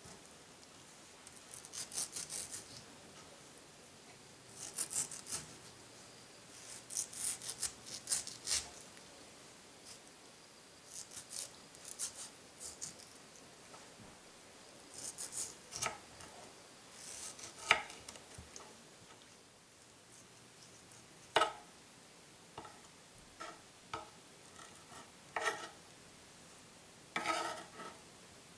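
Kitchen knife slicing ripe mango flesh away from the skin in short rasping strokes, with a few sharp taps of the blade on a bamboo cutting board in the second half.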